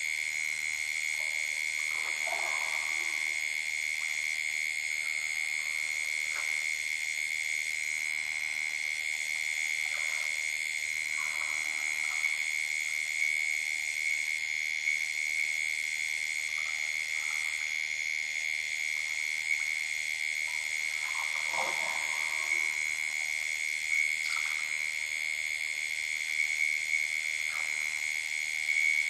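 Steady, high-pitched night chorus of calling frogs and insects around a waterhole. A few brief lower sounds rise out of it about two seconds in, about ten seconds in, and most strongly about twenty-two seconds in.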